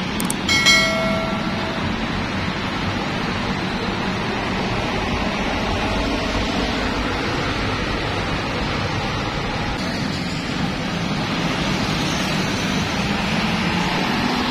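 Buses and other road traffic driving past, a steady rumble of engines and tyres. A horn sounds briefly about half a second in, and near the end a bus engine grows louder as a large coach passes close by.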